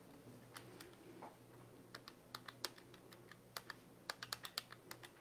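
Faint clicks of buttons being pressed on a handheld calculator: a few scattered presses at first, then a quick run of key presses over the last three seconds.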